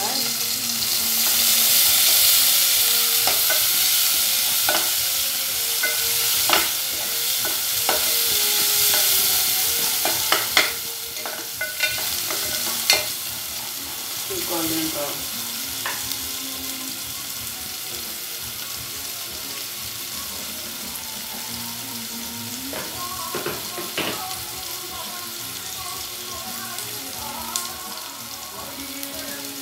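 Sliced red onions sizzling in hot oil in an aluminium pot, stirred with a wooden spatula that clicks against the pot several times in the first half. The sizzle is strongest in the first third, then settles lower.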